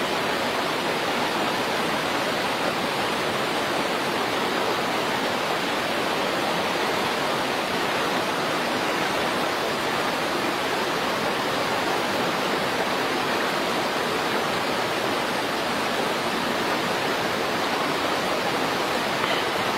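Steady, even rushing noise that does not change, like a stream or waterfall.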